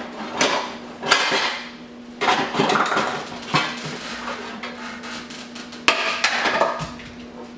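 Dishes and kitchenware clattering and knocking against each other and the cabinet shelf as they are shifted around and lifted out, in several bursts.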